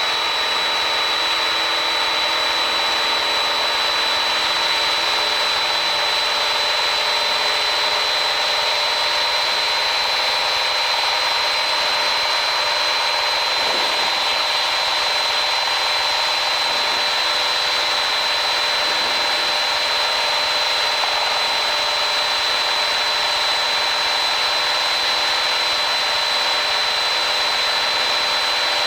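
Piper PA28-161's four-cylinder Lycoming engine and propeller at full takeoff power during the climb after lift-off, heard in the cockpit as a steady, even drone with a constant high whine over it.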